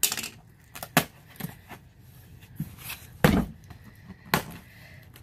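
Corrugated cardboard box being worked open by hand along its perforated seam: a string of irregular knocks, taps and short tearing sounds, the loudest a dull thump a little past three seconds in.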